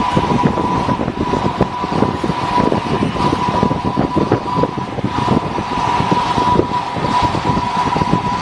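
Steady machine noise from a CNC plasma cutting setup: a constant high tone over a rough, crackling rumble.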